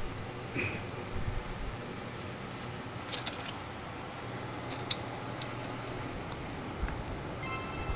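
Steady low workshop hum with scattered light clicks and taps from tools and parts being handled under the vehicle. A chime starts near the end.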